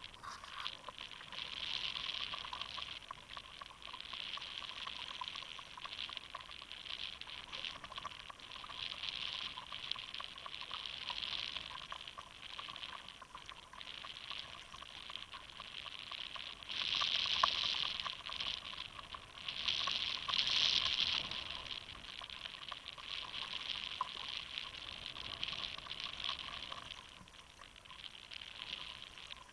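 Choppy sea water lapping and splashing against the hull of a sit-on-top fishing kayak in uneven surges, with two louder splashy spells a little past halfway.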